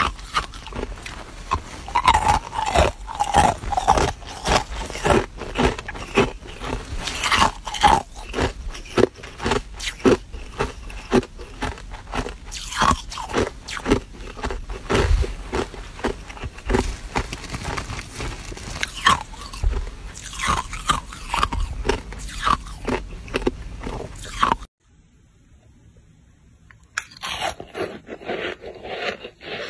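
Close-up crunching of hard ice cubes being bitten and chewed: a rapid, uneven run of sharp cracks and crunches. It stops suddenly about 25 seconds in, and after a short hush a softer crunching and scraping begins.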